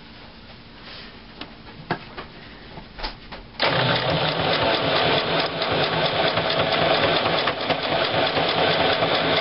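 A few light clicks, then about three and a half seconds in a Singer electric sewing machine starts stitching and runs steadily at speed, the needle clattering rapidly as it sews a straight seam.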